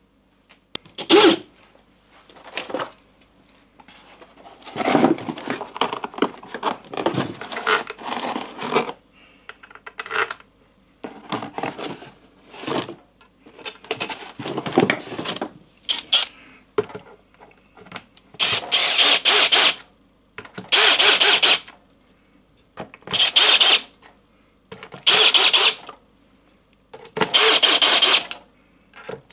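Socket ratchet clicking as the bolts on a lawn tractor's transaxle case are run down and tightened with a 10 mm socket. The clicking comes in irregular clusters at first, then about two-thirds through settles into regular bursts about a second long every couple of seconds, one burst per stroke of the ratchet.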